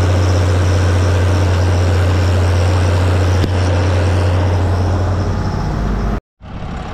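Tractor diesel engine running steadily under load while pulling a grass mower, heard close to its upright exhaust stack as a loud, deep drone. It cuts off suddenly near the end.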